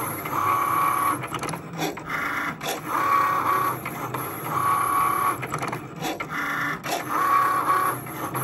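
Cricut Maker cutting machine kiss-cutting heart-shaped stickers on a sticker sheet: its carriage and blade motors whine in about six short runs of under a second each, with brief pauses and clicks between as the tool head moves.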